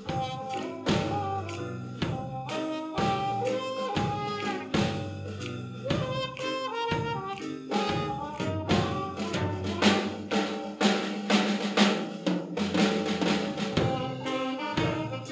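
Swing big band playing a jazz arrangement: a drum kit keeps a steady beat with rimshots under brass section lines. The band fills out and grows louder from about eight seconds in.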